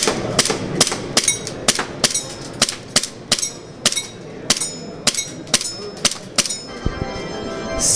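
Airsoft pistol shots fired in quick succession at electronic targets, about two to three sharp pops a second, some followed by a brief ring. This is a timed shooting run of about seven seconds.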